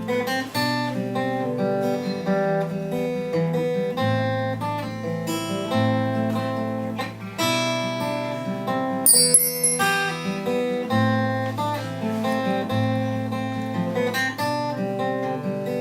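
Instrumental song intro: strummed acoustic guitar under held harmonica notes, with a brief high metallic ring from a percussion instrument about nine seconds in.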